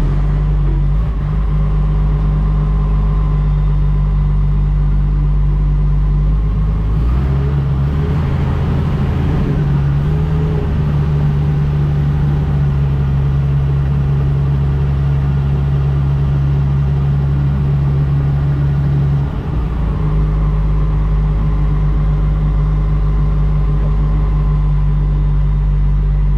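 Heavy diesel engine of an earthmoving machine running under load, heard from inside the cab. Its note changes about seven seconds in and changes back shortly before twenty seconds.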